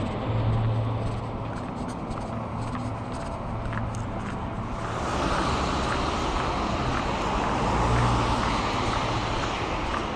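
Road traffic on a street alongside: a steady low engine hum, then from about halfway a louder rush of tyre and engine noise as vehicles pass close by.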